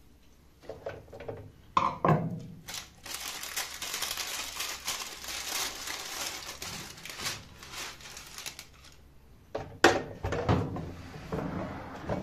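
Baking parchment crinkling and rustling for several seconds as the cooked lamb in its paper liner is lifted out of the air fryer basket. About ten seconds in comes a sharp plastic knock and a few thuds as the Philips Airfryer XXL basket is pushed back into the machine.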